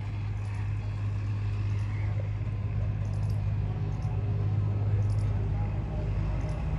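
A steady low hum, with faint voices in the background.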